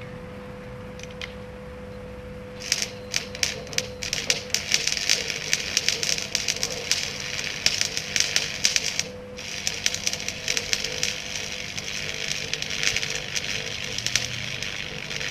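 Electric arc welding on the steel frame tubing: after a few seconds of a steady hum, the arc strikes and crackles and sputters in a rapid, irregular stream of sharp ticks, stops briefly about nine seconds in, then strikes again and runs on.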